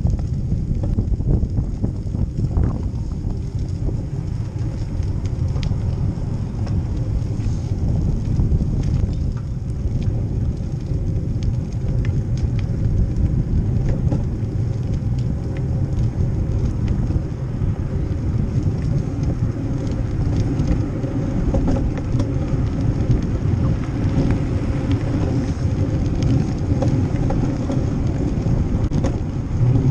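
Steady wind rumble on the microphone of a bicycle-mounted GoPro, mixed with tyre and road noise from the bike rolling along a paved bike lane, with a few faint clicks and rattles.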